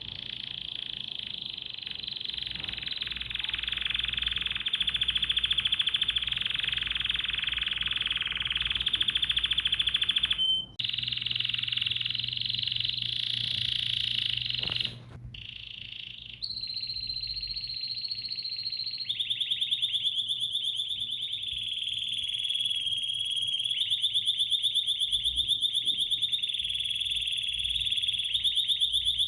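Songbird singing a long, fast, continuous trill at a high pitch. It breaks off abruptly about ten and fifteen seconds in and resumes with a slightly different trill, as if separate recordings were spliced together.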